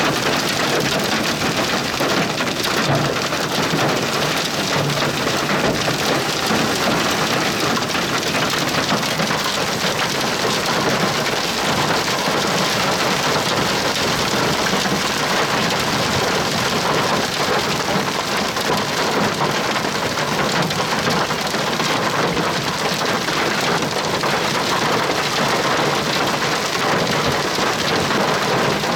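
Heavy rain from a severe thunderstorm pelting a vehicle, a dense, steady hiss of drops that does not let up.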